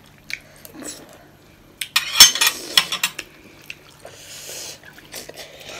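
Close-up eating sounds: a metal fork clinking and scraping on a plate, and instant noodles being slurped, loudest about two seconds in.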